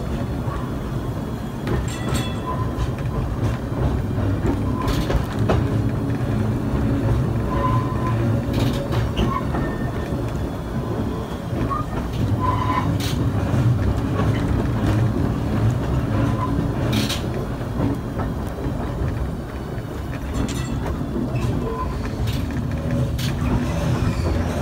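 Brooklyn Rapid Transit open streetcar running along the track, heard from inside the car: a steady low rumble of wheels and running gear, with a few sharp clicks at irregular intervals as the wheels cross rail joints.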